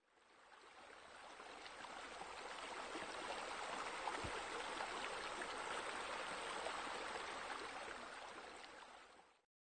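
Running water, a steady flowing sound like a stream, fading in over the first few seconds and fading out near the end.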